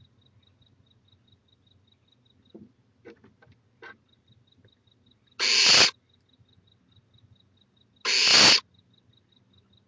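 Barn owl snoring: two harsh, breathy hisses of about half a second each, roughly three seconds apart. This is the barn owl's food-begging call. A few faint scratches or clicks come a little before the first hiss.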